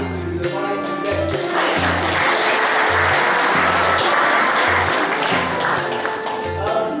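An audience applauding for about four seconds, starting about a second and a half in, over music with a steady bass beat.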